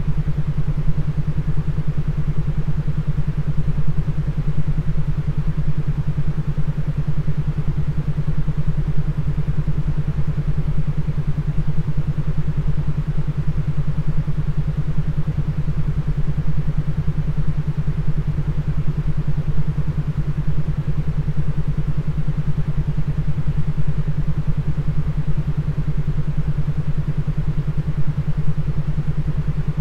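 A steady low droning tone with a fast, even pulsing, over a constant hiss of noise. It is a brainwave-entrainment beat, the kind of tone track made for headphone listening to induce a mood or sensation.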